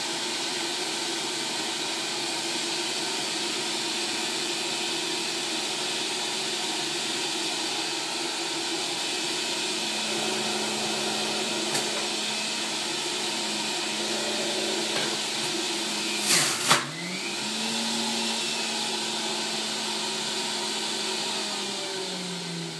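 Breville centrifugal juicer running steadily as produce is pushed down the feed chute. About 16 seconds in there is a brief loud burst as a piece is forced through, and the motor's pitch dips under the load, then recovers. Near the end the motor is switched off and starts to wind down, its pitch falling.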